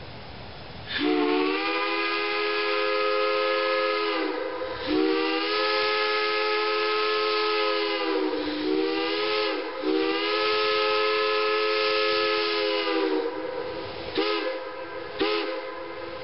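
A steam locomotive's chime whistle sounds a chord of several notes with a steam hiss behind it. It blows long, long, short, long, the pattern of the grade-crossing signal, then gives two brief toots near the end. The pitch sags as each blast opens and closes.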